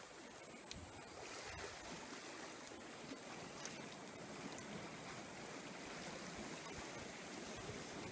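Steady, soft wash of sea waves at a breakwater, with a few faint clicks.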